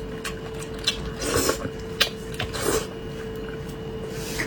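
A person eating close to the microphone: a few sharp clicks of utensils and short wet chewing or slurping noises, over a steady faint hum.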